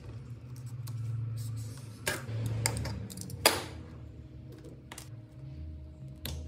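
Hand tools working an insulated wire on a rubber work mat: a utility knife scoring and stripping the insulation, then side cutters closing on the wire. It comes as a handful of sharp clicks and scrapes, the loudest about halfway.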